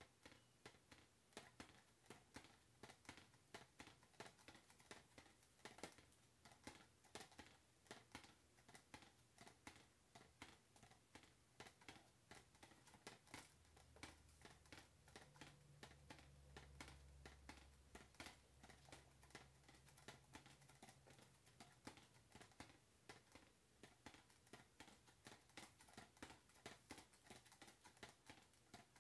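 Faint, irregular light tapping and clicking, a few taps a second, from a homemade foam-cup bell swung on a drinking-straw axle: the clapper and straw knock softly against the cup. A faint low hum comes in about halfway through.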